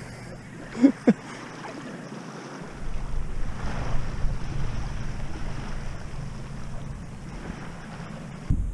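Wind buffeting the microphone, setting in about two and a half seconds in, over sea water lapping in the shallows. A short vocal sound comes about a second in.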